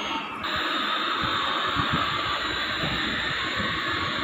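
Battery-powered transforming robot toy car running, its small electric gear motor whirring with a steady hiss as it drives. The steady sound sets in about half a second in, replacing the toy's rhythmic sound effect.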